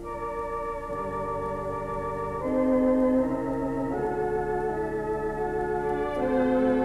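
Organ music: sustained chords, each held for a second or two before moving to the next.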